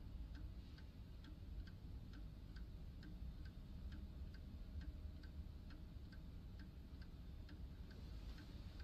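Clock ticking softly and evenly, a little over two ticks a second, over a low room rumble.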